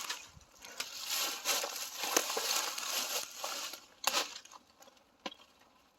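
Dry leaves and litter crunching and crinkling. The sound dies away about four seconds in, and a few sharp clicks follow.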